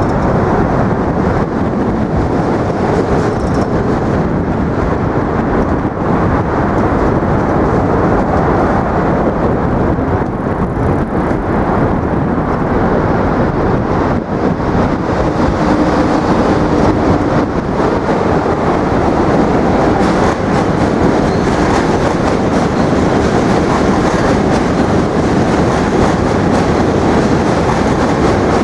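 A New York City subway train crossing the Manhattan Bridge: a loud, steady rumble of wheels on the bridge's rail tracks that does not let up.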